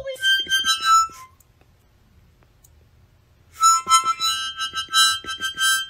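A miniature harmonica held at a pet rat's mouth, sounding in short wheezy chords: a burst of about a second, a pause of about two seconds, then a quick run of short choppy notes from about three and a half seconds in.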